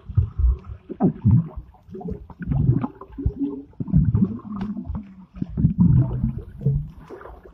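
Swimming-pool water heard through a submerged phone microphone: muffled, low, uneven rumbling and gurgling of moving water.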